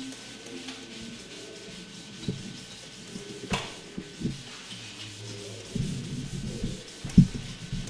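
Felt chalkboard duster rubbing chalk off a blackboard in irregular strokes, with a sharp knock about three and a half seconds in and a louder one near the end.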